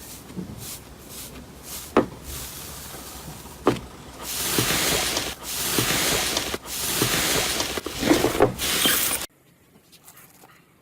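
Slime being pressed and pulled by hand: crackling, sticky noise in several loud bursts, with sharp pops about two seconds in and again after three and a half seconds, cutting off abruptly near the end.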